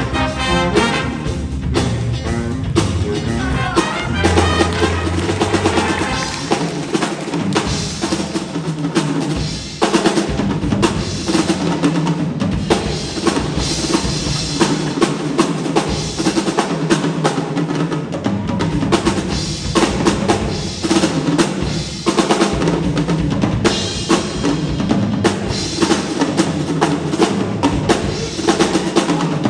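A jazz big band playing, with the drum kit to the fore: snare, rimshots and bass drum driving a fast, busy rhythm under the horns.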